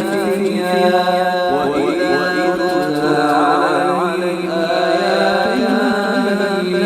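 A man reciting the Quran in slow, melodic tajweed chant, holding and bending long notes.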